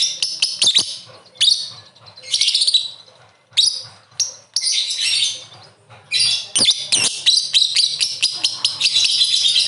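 Lovebird chattering with shrill, high-pitched chirps: short bursts with gaps at first, then about six seconds in a rapid, unbroken stream of chatter, the long 'ngekek' that lovebird keepers play to set other birds calling.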